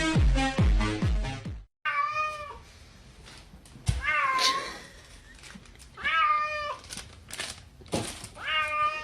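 Electronic music with a heavy beat that cuts off under two seconds in; then a cat meows four times, about two seconds apart, with a thump just before the second meow.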